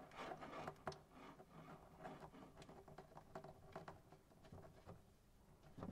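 Faint small clicks and scrapes of a braided stainless steel line's nut being threaded by hand onto the filter's brass inlet fitting, with a slightly louder tap near the end.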